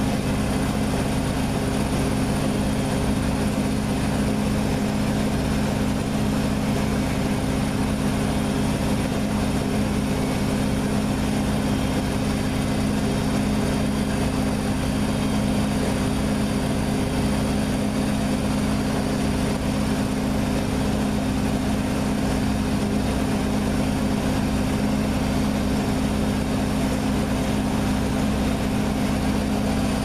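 Beko front-loading washing machine in a fast spin, near 1000 rpm, with a steady loud hum and rushing noise from the drum and motor. It is spinning a badly unbalanced load.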